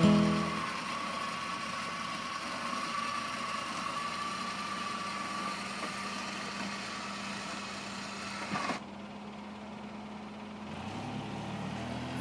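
Button-operated lift of a UTV front game loader whining steadily as it raises a deer onto the rack, over the UTV's engine idling. The whine cuts off about nine seconds in, leaving a quieter low engine hum.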